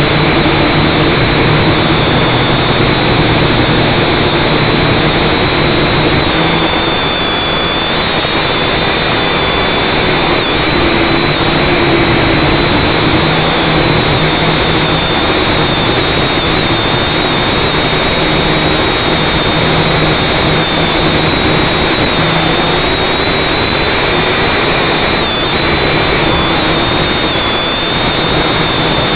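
Electric motors and propellers of an FPV drone, heard close up from its onboard camera: a loud, steady whirring buzz whose pitch wavers slightly as the throttle changes.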